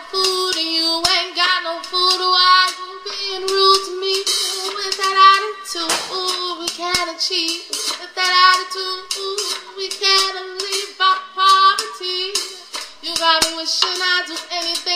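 Music: a high female singing voice holding and bending notes over a light backing.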